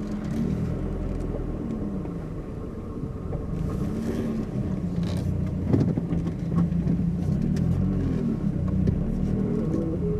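2007 Mazdaspeed3's turbocharged 2.3-litre four-cylinder engine pulling away and accelerating through the gears, its pitch rising and dropping back several times as the six-speed manual is shifted. A short knock sounds about six seconds in.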